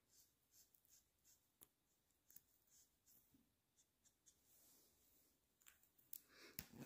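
Very faint, short scratchy strokes of a Copic alcohol marker blending colour on paper, with a few louder paper-and-hand rustles near the end.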